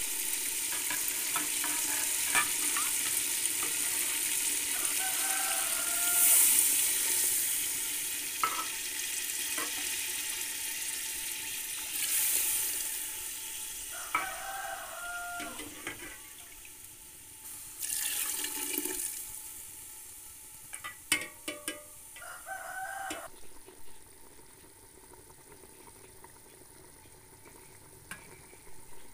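Chicken and masala sizzling in hot oil in an aluminium cooking pot, with several louder hissing surges as liquid goes into the hot pot and a few sharp metal ladle clicks. Past the middle the sizzle dies down to a quieter bubbling boil.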